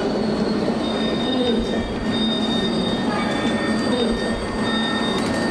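Passenger train running: a steady rumble of the rail car with high, thin squealing tones from the wheels that come and go.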